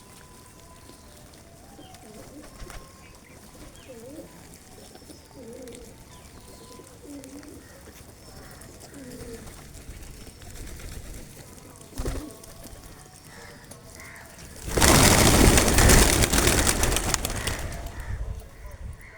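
Pigeons cooing, short low calls repeating every second or two. About fifteen seconds in, a loud rushing noise takes over for about three seconds and fades.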